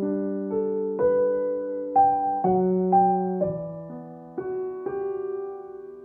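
Calm solo piano music: slow single notes and chords, each struck and left to ring out and fade, thinning toward the end.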